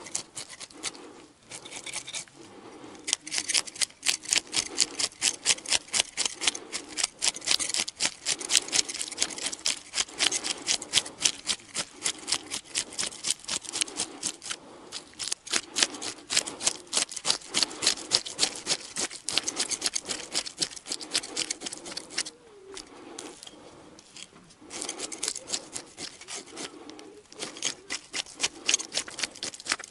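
Knife scraping scales off a fish in quick rhythmic strokes, about three a second, with a short pause about two thirds of the way through.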